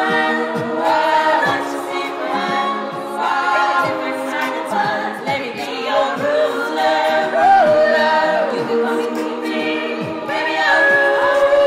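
All-female a cappella ensemble singing held chords in close harmony without clear words, over a steady beat of short clicks; a new sustained chord comes in near the end.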